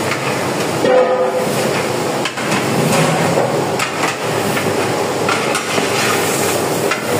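Long metal ladle scraping and knocking against a large aluminium pot as mutton, onions and tomatoes are stirred in hot oil, over a steady frying hiss. A brief squeal comes about a second in.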